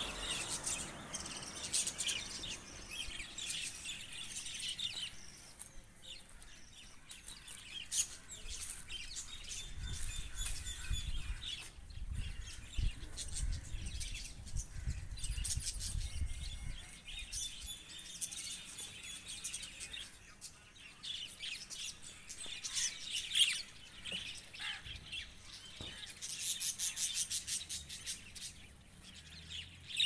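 A flock of budgerigars chirping and chattering continuously, with a quick run of rapid chirps near the end. A low rumble sits under the chirping for several seconds in the middle.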